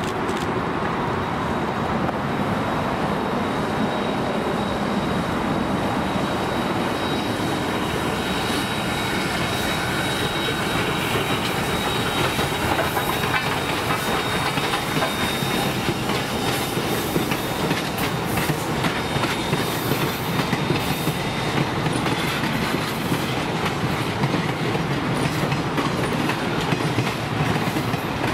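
A steam locomotive and its passenger coaches run past close by in a steady rumble, with wheels clicking over the rail joints more and more often in the second half. A faint high wheel squeal is held through the middle.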